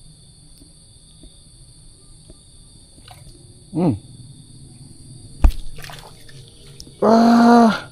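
Insects droning steadily at two high pitches over a low background rumble. About four seconds in comes a loud call that falls steeply in pitch, then a sharp click, and near the end a loud held pitched call lasting under a second.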